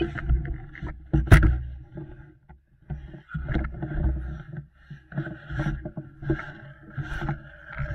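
Footsteps crunching through snow with clothing rustling close by, in uneven pulses, broken by one sharp knock about a second in.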